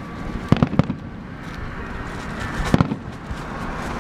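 Fireworks bursting: four sharp bangs, a pair about half a second in and another pair near three seconds in.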